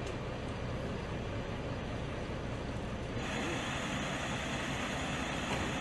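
Parked city buses idling: a steady low engine rumble with a constant hiss over it, which grows brighter about three seconds in.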